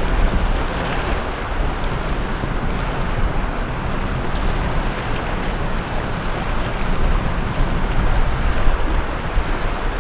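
Sea waves breaking and washing on the shore in a continuous surging wash, with wind buffeting the microphone.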